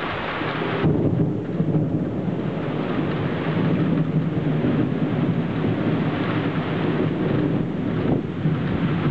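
Thunder rolling and rumbling low for several seconds, starting about a second in, over a steady hiss of rain.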